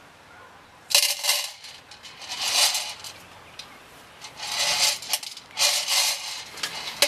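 Plastic toy pots and play-food pieces clattering and rattling as they are handled on a toy kitchen stove, in four or five short bursts.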